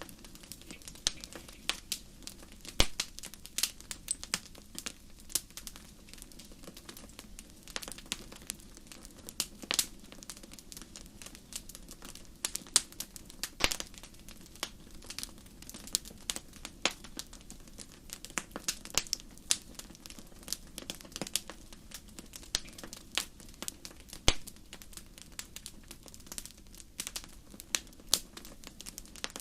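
Wood fire crackling: irregular sharp pops and snaps, several a second, over a steady low rush.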